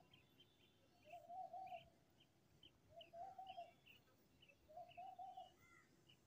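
Faint birdsong: a low call, about half a second long, repeated roughly every two seconds, with short high chirps scattered between.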